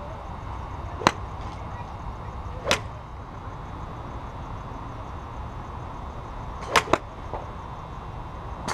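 Sharp clicks of golf clubs striking range balls, one about a second in, another near three seconds in, a quick pair about seven seconds in and one more near the end, over a steady background noise.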